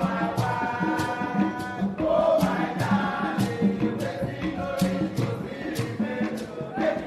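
Music: a group of voices singing together over steady percussion strokes, about two a second.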